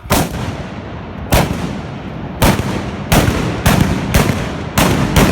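Trabucs (blunderbusses loaded with black-powder blanks) firing about eight loud shots at irregular intervals, each trailing into a long rumbling echo that fills the gaps between them.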